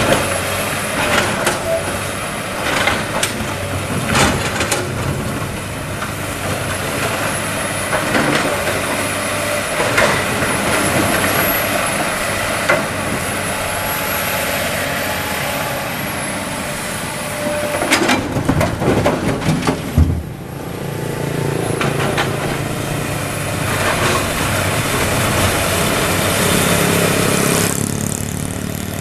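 Komatsu PC200 excavator's diesel engine running steadily under hydraulic work, with a thin wavering whine. Scattered knocks, and a dense cluster of loud clatter a little past halfway, as limestone rock is dug and dropped into a steel dump-truck bed.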